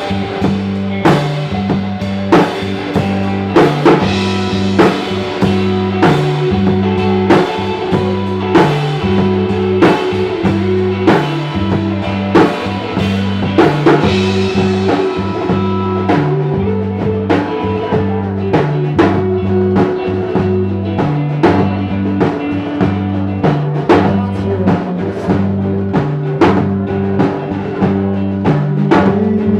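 Rock band playing live: guitars, bass guitar stepping through a repeating line, and a drum kit keeping a steady beat.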